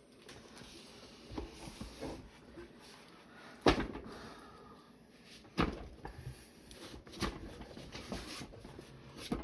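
Metal ammunition tins, opener keys and pliers handled in and around a wooden ammo crate: faint scattered clicks and rattles, with four sharp knocks spaced about two seconds apart, the first the loudest.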